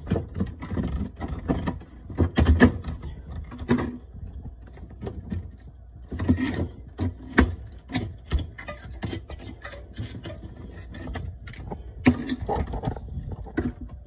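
Irregular knocks, scrapes and clatter of built-up ice being broken loose and picked out by hand from a freezer floor below the evaporator coil.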